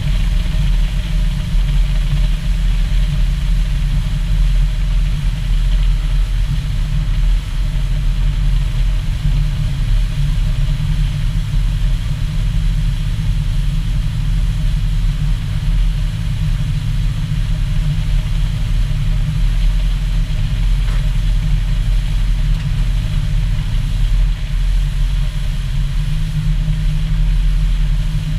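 Single outboard motor running steadily at high cruising speed, about 45 mph, with heavy wind rushing over the microphone and water rushing past the hull. The sound is a loud, continuous low rumble that holds steady throughout.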